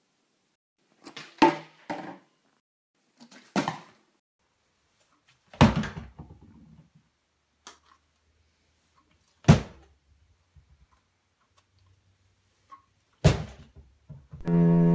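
Part-filled plastic water bottles thudding down as they are flipped: a series of sharp single thunks a few seconds apart, two close together about a second and a half in. Music comes in near the end.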